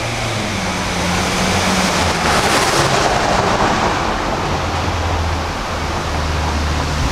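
Street traffic: a vehicle passing, with a swell of tyre and road noise about two to three seconds in, over a low engine hum.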